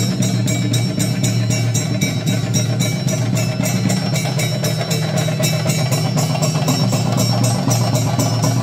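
Dense, fast drumming with cymbal strikes about four times a second, the chenda drums and hand cymbals that accompany a theyyam.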